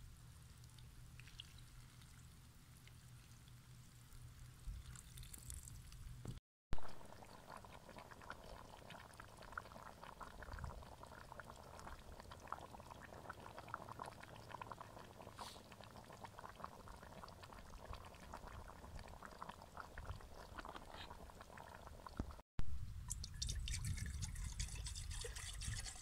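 A pot of abgoosht (lamb broth) cooking over a wood fire, with a steady scatter of small pops and crackles. Near the end, a thick white drink is poured in a stream into a copper pitcher, splashing loudly.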